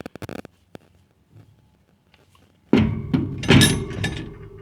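Hand tools being handled and set down on a hard surface: a sudden thunk, then a louder clatter under a second later that fades out with a short ring.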